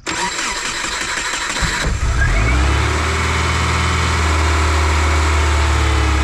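Subaru Impreza 2.5 RS's 2.5-litre flat-four engine cranking on the starter and catching about two seconds in, then running with a slight flare that settles toward idle. It is the first start after its chewed engine-bay fuel lines were replaced.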